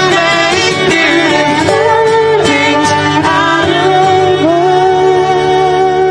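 Music with singing: a melody in long, wavering held notes over steady sustained accompaniment.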